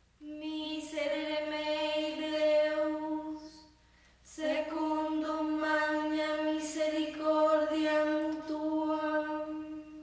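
A woman's voice chanting Latin psalm verses on a single steady reciting note, in two long phrases with a short break for breath about four seconds in.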